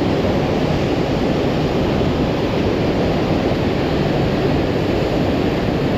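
Steady, loud rushing of a flooded mountain river in spate, muddy whitewater pouring over and around rocks close by.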